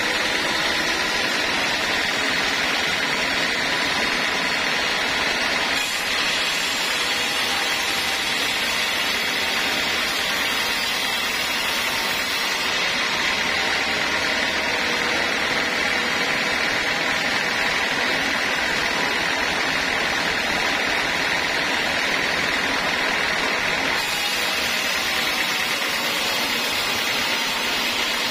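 Vertical band sawmill running with its blade cutting lengthwise through a teak log: a steady whine over the rush of sawing.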